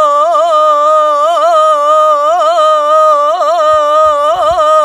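A man singing one long unaccompanied held vowel of an Arabic mawwal ('ataba'), decorated with quick trills and turns around a steady pitch.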